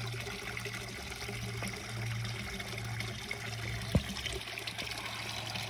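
Water trickling and splashing steadily into a garden koi pond, with a steady low hum underneath and a single sharp click about four seconds in.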